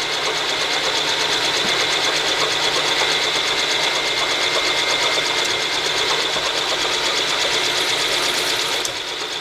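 Vertical milling machine spindle running steadily with a high whine and a fine even rhythm, while a spot drill is fed into an aluminum part. The sound drops slightly near the end.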